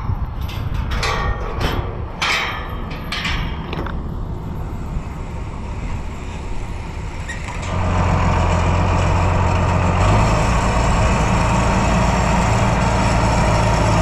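Oliver 1650 diesel tractor engine running. About eight seconds in it grows louder and settles into a steady, even note. A few sharp knocks and clatters come in the first few seconds.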